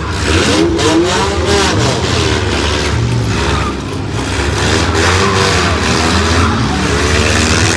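Demolition-derby cars' engines running and revving, rising and falling in pitch, with a few sharp knocks about a second in from cars hitting each other.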